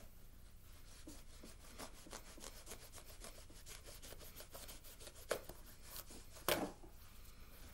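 Gerber Principle knife blade slicing and sawing through denim: a faint run of short scraping strokes, with two louder ones about five and six and a half seconds in.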